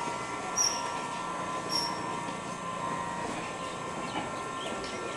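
Distant Indian Railways EMU electric local train running, a steady whine with rumbling noise beneath. A few short high chirps sound over it.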